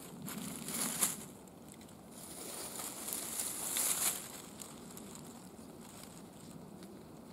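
Dry fallen leaves rustling and crackling as a wool blanket bedroll is unrolled and spread over them. The noise comes in a short burst in the first second and a longer one from about two to four seconds in, then settles to quieter rustling.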